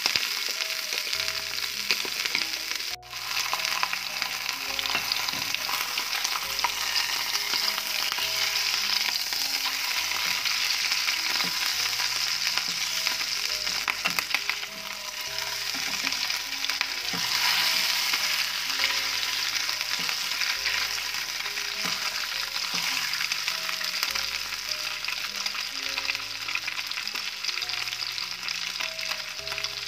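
Liver slices frying in hot oil in an aluminium pan: a steady, dense sizzle. The sizzle drops out for an instant about three seconds in. Soft background music with held low notes plays underneath.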